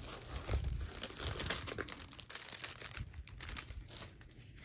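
Clear plastic wrap crinkling as a rolled canvas is slid out of it: dense crackling for about three seconds, then dying down to a few light rustles.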